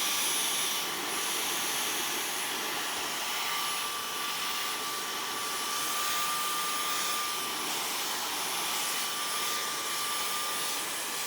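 Dyson V11 Absolute cordless stick vacuum running steadily, a rushing whir of air with a thin, constant whine, as it sucks crumbs off a chair.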